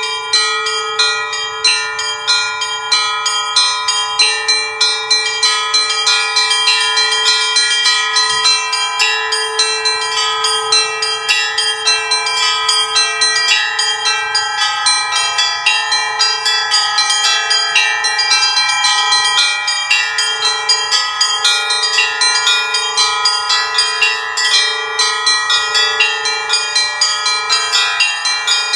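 Russian Orthodox festive bell ringing on a portable belfry of seven small bells, from 32 kg down to 5 kg. The strikes are rapid and unbroken, with the small bells chiming quickly over a lower bell that strikes again and again.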